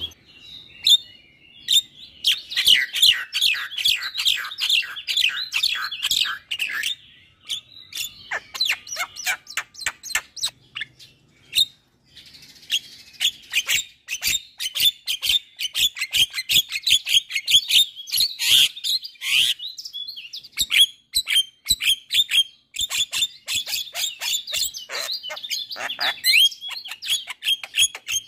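Javan myna singing a rapid, chattering song of chirps, whistles and sharp clicking notes, broken by a few short pauses.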